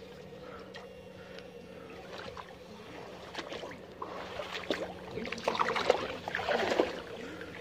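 Electrofishing poles sweeping and splashing through shallow muddy ditch water as the fisher wades forward. The splashing is light at first and becomes busier and louder in the second half. A faint steady hum runs underneath.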